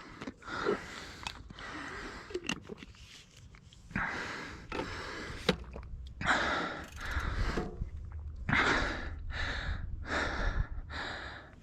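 A cyclist's heavy mouth breathing from the effort of a climb. Quieter breaths come first, then from about four seconds in, loud gasping breaths about once a second, over a low steady rumble.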